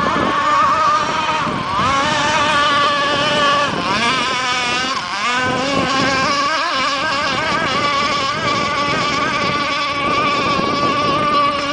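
Radio-controlled gas model racing boats running flat out, their small two-stroke engines whining at high revs, with water spray hissing. The engine note wavers and dips in pitch about halfway through as a boat turns or passes.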